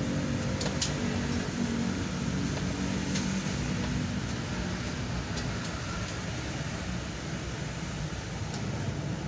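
Steady road traffic heard from inside a stationary car: motorbikes passing on the road under a constant hum, with a few faint clicks.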